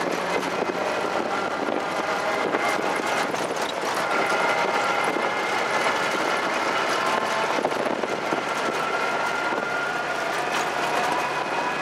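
Steady engine and tyre noise of a motor vehicle driving along a dirt track at speed.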